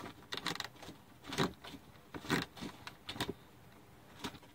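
Irregular clicks, knocks and scrapes of car-body parts being handled and fitted, a handful of separate short sounds.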